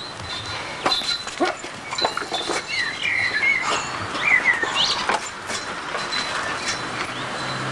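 Small birds chirping in short, repeated calls, over a steady hiss with scattered clicks and knocks.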